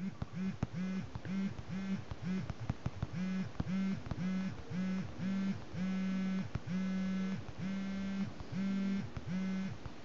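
iPhone vibration motor buzzing each time a finger taps and holds the screen while a custom vibration pattern is recorded. First comes a quick run of short buzzes, about three a second, then, about six seconds in, longer buzzes of about half a second each, with light taps of the fingertip on the glass between them.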